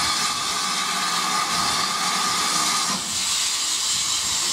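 Steady hiss of steam escaping from a standing steam locomotive. A lower strand of the hiss cuts off about three seconds in, and the higher hiss carries on.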